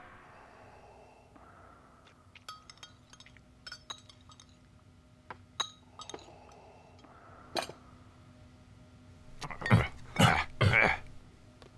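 Cutlery and glasses clinking sparsely at a dinner table over a faint steady hum. Near the end come three louder, deeper noises in quick succession.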